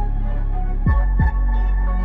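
Background music: a song with a deep, steady bass line and punchy kick-drum hits, one right at the start and two close together about a second in.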